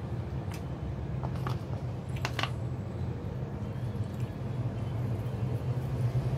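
Steady low background hum, with a few light clicks and a short clatter of tableware about two seconds in.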